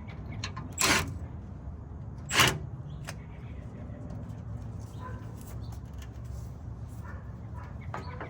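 Two sharp knocks about a second and a half apart, from hand work on a truck's sway bar links, over a steady low hum, with a few faint clicks later on.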